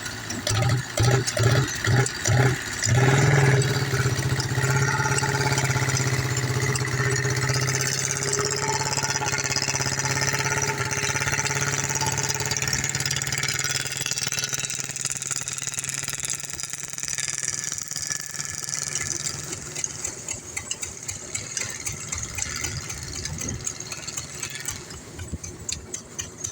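Tractor diesel engine running, pulsing unevenly for the first few seconds, then settling into a steady run that slowly grows fainter.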